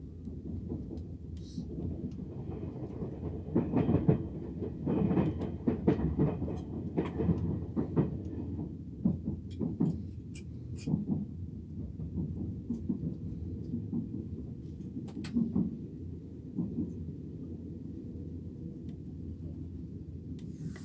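TGV passenger train running, heard from inside the carriage: a steady low rumble with irregular clatter and clicks of the wheels over rail joints and points, heaviest a few seconds in.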